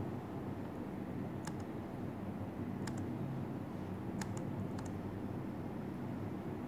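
A handful of sharp, irregular clicks, typical of laptop keys being tapped, over a steady low hum.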